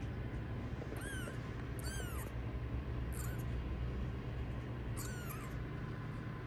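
Kitten mewing four times: short, thin, high-pitched mews that rise and then fall in pitch, spaced about one to two seconds apart, over a steady low hum.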